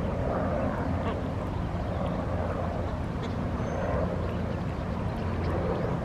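Pond ambience: a steady low rumble with faint waterfowl calls over it.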